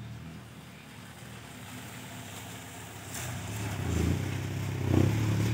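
Small automatic motor scooter engine running as it rides up on the road, growing louder over the last two seconds or so.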